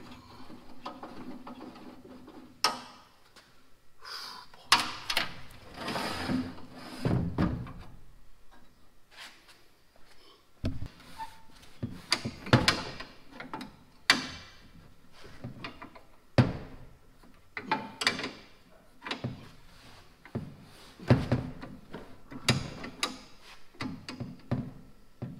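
Hand wrench working rusted bolts loose on a Farmall Super M radiator and its steel shroud, making irregular metallic knocks and clinks as the tool slips, shifts and taps against the sheet metal. The bolts are stubborn and seized with rust.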